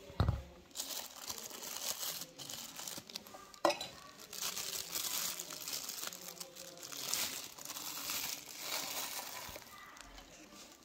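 Thin plastic wrapping crinkling as it is peeled off a new wristwatch. A thump sounds just after the start, and a sharp click comes a little before four seconds in.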